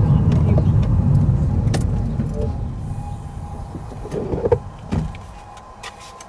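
Car road noise and engine rumble dying away as the car slows to a stop, with a few knocks about four to five seconds in, leaving a much quieter idle.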